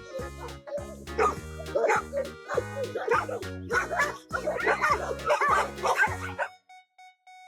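A dog barking repeatedly over background music with a steady beat. Barks and beat stop about six and a half seconds in, leaving only faint music tones.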